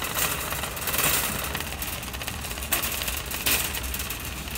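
Shopping cart being pushed, its wheels rattling steadily over a hard store floor, with a few knocks.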